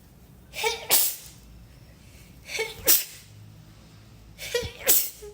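A woman sneezing three times in a row, about two seconds apart, each sneeze a short 'ah' breaking into a sharp, loud 'choo'.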